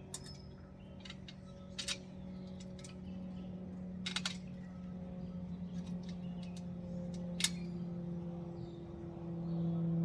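A few sharp metallic clicks and clinks from trampoline frame bolts and parts being handled and fitted by hand, over a steady low hum that grows louder near the end.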